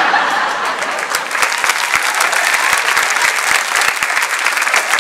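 Live studio audience applauding: many hands clapping in a dense, steady patter.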